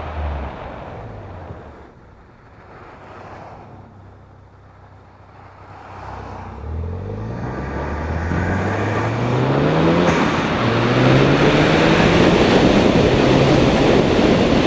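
2015 Ford Focus ST's turbocharged 2.0-litre EcoBoost four-cylinder breathing through an Injen aftermarket intake. It runs quietly off the throttle for a few seconds, then accelerates hard, revs climbing, with an upshift about ten seconds in before it pulls again.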